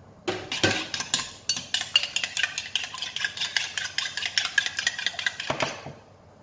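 Raw eggs being beaten by hand in a glass mixing bowl with a metal utensil: a fast run of clinking strokes against the glass, several a second, starting just after the beginning and stopping near the end.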